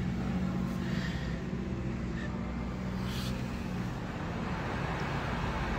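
A car engine idling, a steady low hum.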